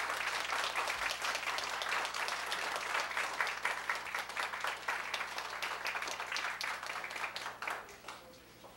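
Audience applauding at the end of a talk: dense clapping that thins and fades out near the end.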